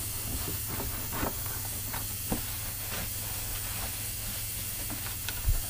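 Steady background hiss and low hum, with faint scuffs and a few light knocks from a cloth rag wiping down a lawnmower's plastic deck and engine cowl.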